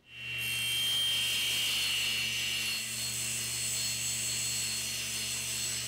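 Table saw ripping a 2x4 lengthwise: a steady motor hum under the hiss of the spinning blade cutting through the wood. It starts suddenly and eases off slightly toward the end.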